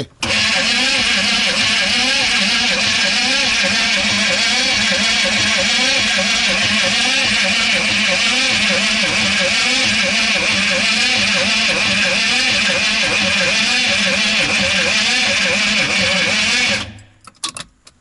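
GMC Vandura's diesel V8 being cranked on the starter after glowing, for about seventeen seconds, turning over in an even steady rhythm without firing, then cut off abruptly. The even cranking points to good compression, but the engine does not start, in a van with a suspected diesel fuel-line problem.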